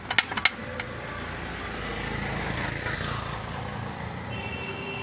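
Hino J05C four-cylinder diesel engine running steadily, swelling a little around the middle. A few sharp clicks or knocks come in the first half second.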